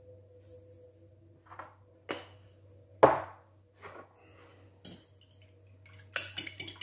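A few separate knocks and clinks of kitchenware being handled and set down, the loudest about three seconds in. About six seconds in, a fork starts beating eggs and milk in a glass bowl, a rapid run of clinks against the glass.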